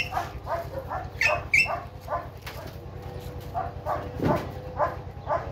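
Dog giving short, repeated barks and yips, about two or three a second.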